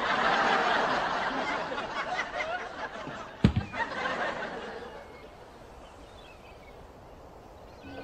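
Studio audience laughing, loudest at first and dying away over about five seconds, with a single sharp knock about three and a half seconds in.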